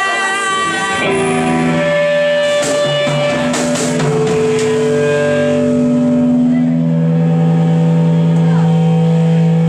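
Distorted electric guitar and bass through amps, holding long droning notes that step to a new pitch every second or two. A few cymbal strikes come about three seconds in.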